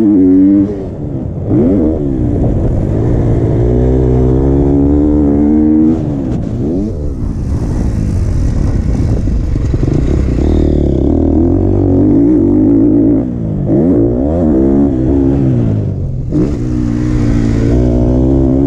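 KTM SX-F 250's single-cylinder four-stroke motocross engine being ridden hard: the note climbs and falls again and again as the rider opens the throttle, shifts and rolls off, with a few brief dips where the throttle is shut.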